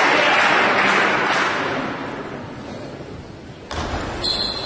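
Crowd noise in a sports hall dying away over a couple of seconds, then a single sudden thud near the end.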